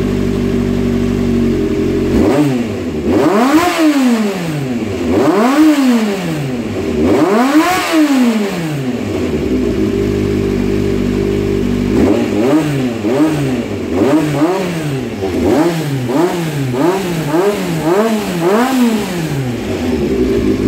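Honda CBX400F's air-cooled inline-four idling, then revved in three slow blips, idling again, and about halfway through blipped quickly about eight times before settling back to a steady idle. The engine is being checked on its freshly overhauled carburettors, with new throttle valves, shaft bushes and diaphragm springs.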